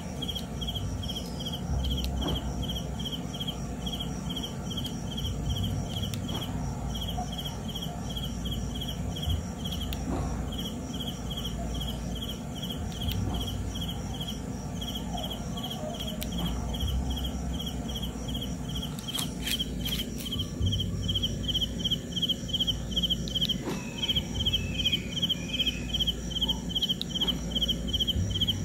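A cricket chirping steadily, about three to four chirps a second, with a few short pauses, over a low steady rumble.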